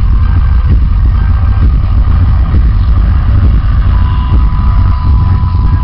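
Loud, bass-heavy playback from a large sonidero sound system, so overdriven that the booming low end swamps the recording. A steady high tone comes in about four seconds in.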